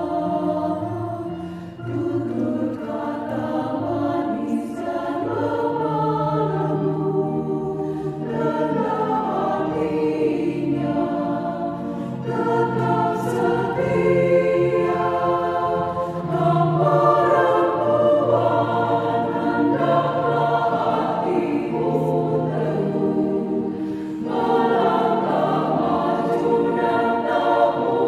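Women's choir singing a hymn in Indonesian, several voices together in a continuous sung melody.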